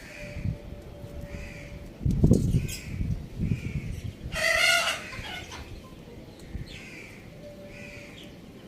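Birds calling: repeated short high chirps, a cluster of low thumps around two to three seconds in, and one loud, harsh call lasting under a second about four and a half seconds in.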